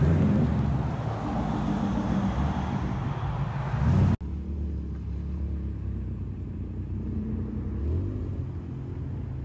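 Car engines and exhausts rumbling as cars drive slowly past. The first is loud and full-sounding; it cuts off abruptly about four seconds in, and a quieter engine rumble follows, swelling slightly now and then.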